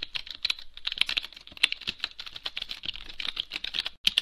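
Computer keyboard typing sound effect: a fast, dense run of keystroke clicks, with a momentary break near the end.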